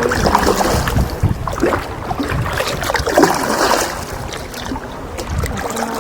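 Water splashing and sloshing around a paddled canoe, with irregular paddle splashes and a low wind rumble on the microphone.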